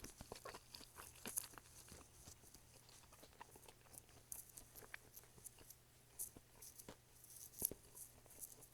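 Quiet chewing of fast food: scattered soft crunches and wet mouth clicks, a few louder crackles among them.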